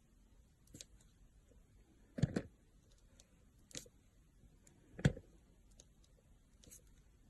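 A few sharp taps and knocks of something being handled close up: a double knock about two seconds in, a lighter tap near four seconds, a heavier knock about five seconds in, with faint ticks between.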